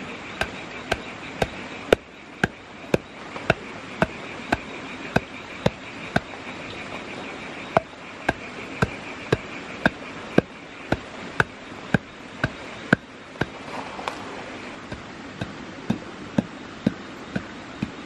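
Dry clay lumps being pounded with a long wooden pole: sharp, regular knocks about two a second. A steady insect drone runs underneath.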